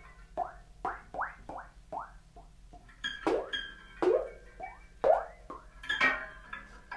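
Free-improvised percussion from a drum duo: short struck notes at irregular intervals, each sliding quickly upward in pitch. Brighter, ringing strikes come about three and six seconds in.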